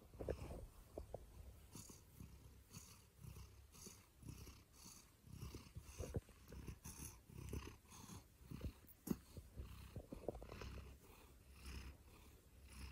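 Domestic cat purring: a faint, low, rhythmic rumble.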